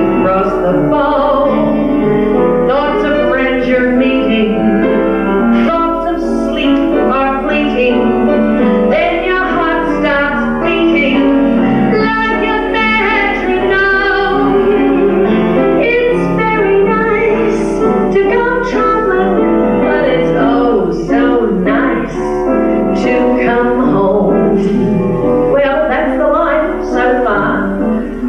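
A woman singing a show tune into a microphone, with piano accompaniment.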